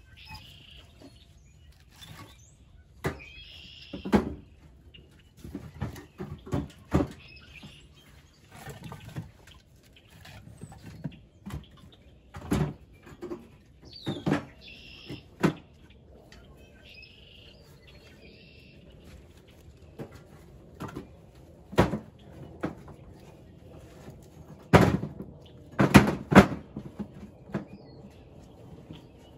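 Split firewood being stacked by hand into wire-caged IBC totes: irregular wooden knocks and clatters as pieces land on one another, loudest in a quick cluster near the end. Small birds chirp now and then.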